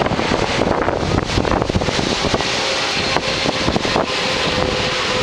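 Wind buffeting the microphone over a steady rushing noise from a Boeing 777 jet airliner coming in to land.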